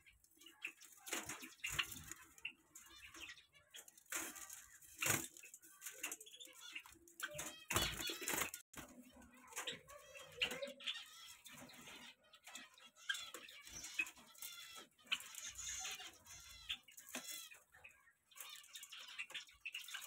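Small cage birds in a mixed aviary chirping and calling in short, scattered notes, with a few sharp knocks or flutters among them.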